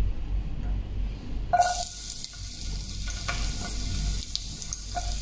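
Chopped garlic hitting hot cooking oil and sizzling. The hiss starts suddenly about a second and a half in and carries on steadily, with small crackles.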